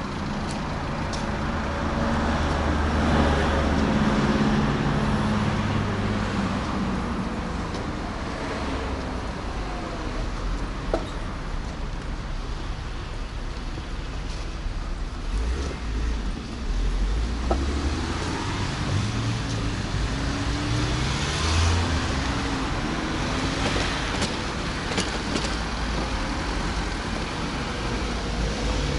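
Road traffic: motor vehicles passing close by on the street, their engines rising in pitch as they pull away uphill, over a steady noise of tyres on the road.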